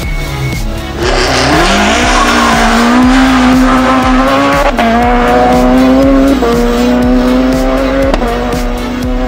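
Rally car engine at full throttle as it passes, its pitch climbing and then dropping sharply three times as it shifts up through the gears. Background music with a steady beat plays underneath.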